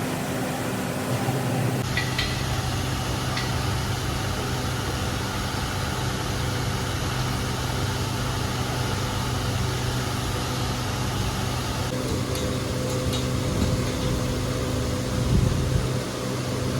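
Steady mechanical hum with a rushing air-like noise, like a motor or blower running, with a few faint clicks and taps.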